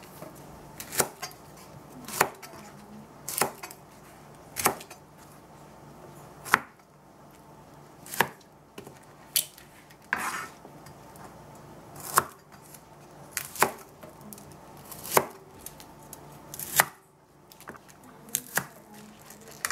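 Large kitchen knife halving Brussels sprouts on a plastic cutting board. Each cut ends in a sharp knock of the blade on the board, about one a second in an uneven rhythm, over a low steady hum.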